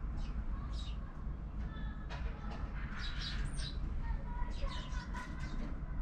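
Eurasian tree sparrows chirping: a scatter of short, sharp chirps that grows busier from about two seconds in, over a low steady rumble.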